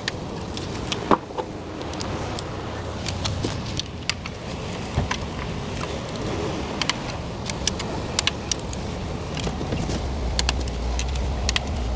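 Scattered metallic clicks of a torque wrench and its ratchet being worked around the valve cover bolts, re-checking each bolt's torque, over a steady low rumble that grows louder near the end.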